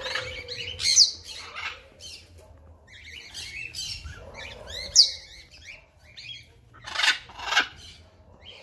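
Birds calling: a shrill squawk about a second in and another at five seconds, with chirping and shorter calls between and two more calls near the end.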